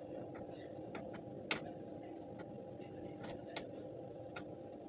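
Spatula clicking and scraping against a frying pan as sugar is stirred into butter: scattered light clicks, with one sharper knock about a second and a half in, over a steady low hum.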